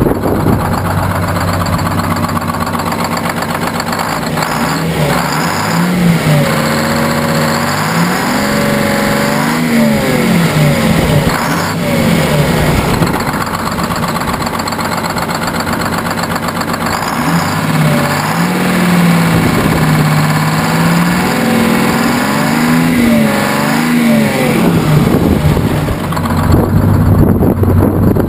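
1959 GMC truck's supercharged two-stroke Detroit Diesel engine running with the hood open, revved up and let fall back twice: once about six seconds in, and again from about seventeen seconds.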